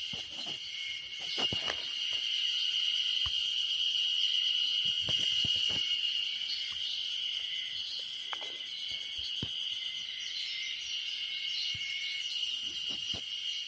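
Steady, high-pitched chorus of insects chirring without a break, with a few faint rustles and clicks scattered through it.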